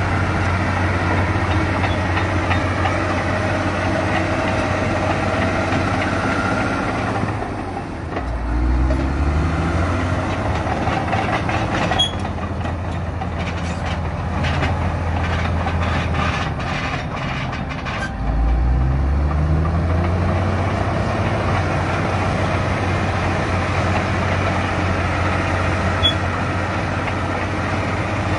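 Large crawler bulldozer's diesel engine running hard as it pushes rocky earth. Twice, about eight and about eighteen seconds in, the engine note dips and then climbs again, and a run of sharp clanks comes in between.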